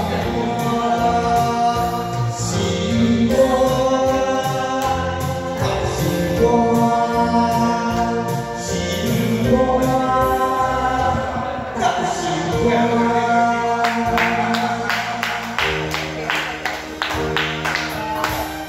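A man and a woman singing a duet into handheld microphones over a karaoke backing track. Near the end the singing stops and the backing music plays on.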